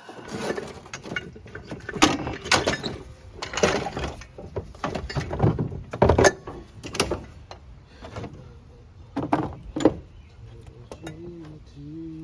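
Metal clanks and knocks from engine parts and hand tools being handled during a small-block Chevy teardown: about a dozen sharp hits spread over the first ten seconds, then quieter.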